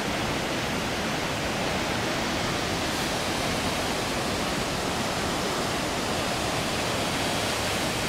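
Akiu Great Falls and the rocky rapids below them: a steady, even rush of falling and tumbling water.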